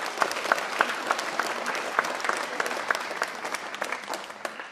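Audience applauding, many hands clapping steadily, dying down near the end.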